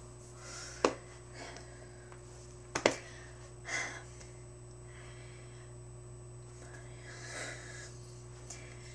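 A woman's breathy sounds, short gasps and sighs with no words, with two sharp knocks about one and three seconds in, over a steady hum.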